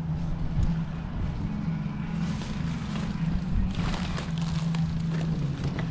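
A vehicle engine idles steadily with a low hum, while items are rustled and shifted twice, briefly, as a kerbside rubbish pile is sorted through by hand.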